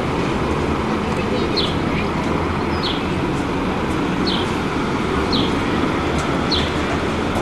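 Diesel engines of double-decker buses running as they move slowly, a steady low rumble mixed with traffic noise. A short, high, falling chirp repeats about once a second throughout.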